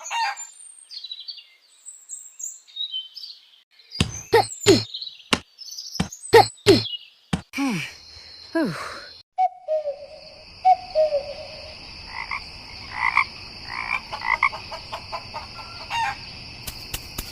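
Animal calls: high chirps, then a run of falling croak-like calls with sharp clicks, then a steady high trill from about ten seconds in with further calls over it.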